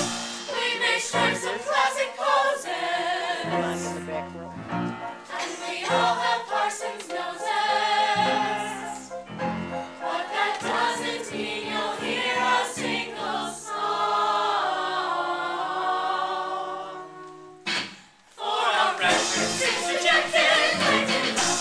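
A group of voices singing a musical-theatre number over backing music. About two-thirds through, a long note is held, followed by a brief break before the song picks up again.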